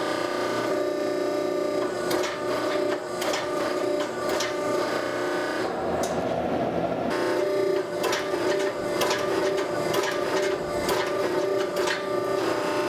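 A forge running with a steady mechanical hum, with scattered light clicks and taps, while a steel billet heats to forge-welding temperature.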